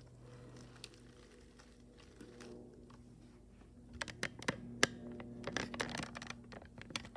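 Plastic laptop parts being handled and fitted together, with a quick run of sharp clicks and taps in the second half, over a faint steady hum.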